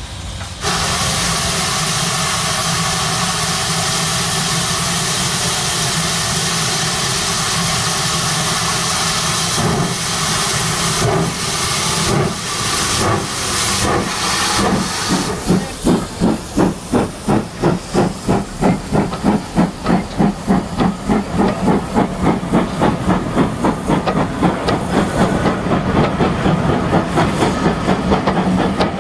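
Steam locomotive sounds: a loud, steady hiss of steam that starts abruptly under a second in, then exhaust chuffs that begin slowly about halfway and quicken as the locomotive pulls its train away from the station.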